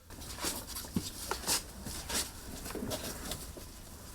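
Forced rhubarb stalks squeaking and popping amid rustling leaves, a scatter of sharp snaps with a couple of short squeaks about a second in.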